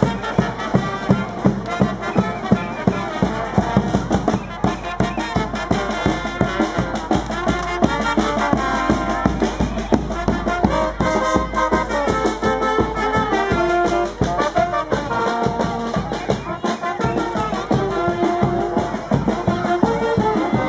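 Marching street band playing a parade tune: trumpets and trombones carrying the melody over a steady bass-drum beat.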